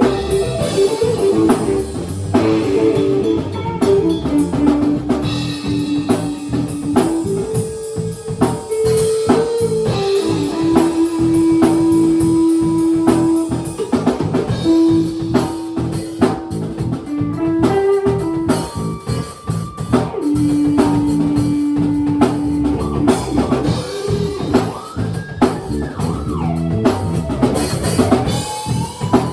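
Impromptu live band jam: a drum kit keeps a steady beat under guitar playing long held notes. Near the end a note slides upward.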